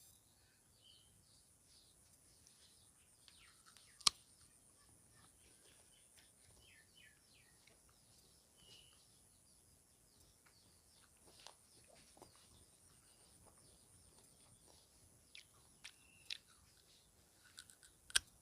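Faint chewing of crunchy raw guava, with small birds chirping in the background. Two sharp clicks stand out, one about four seconds in and one near the end.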